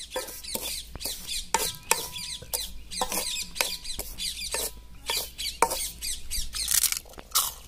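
A wooden spatula stirring hot sand in an iron kadai as small fryums roast in it without oil: an irregular run of gritty scrapes and sharp crackles, a few each second.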